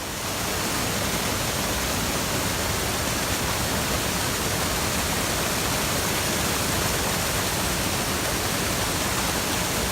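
Steady, even rush of flowing creek water, coming in abruptly at the start and holding without change.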